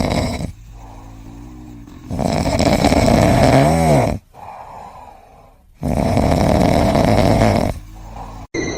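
A pet snoring loudly, with long rasping snores about every four seconds and quieter breaths in between.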